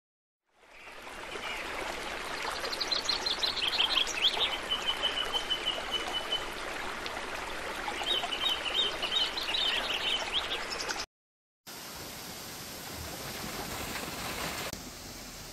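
Running water of a shallow stream with high chirping calls over it, including one held high note; after a brief cut, the steadier rush of water pouring over a small weir.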